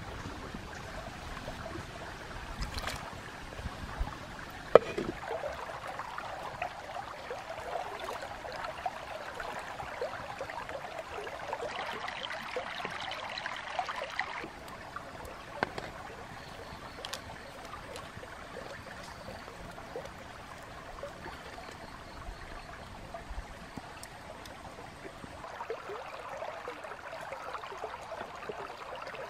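A shallow stream trickling and burbling steadily, with scattered clicks and knocks, one sharp knock about five seconds in.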